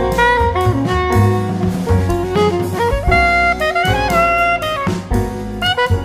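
Instrumental background music: a melody line moving in short notes over a bass line and a drum beat.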